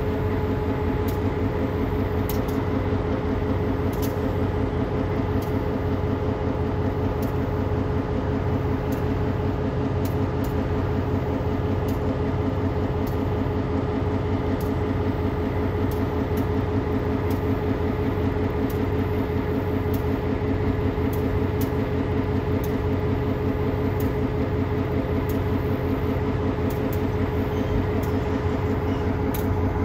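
Diesel-electric locomotive idling, its engine holding one steady, unchanging note.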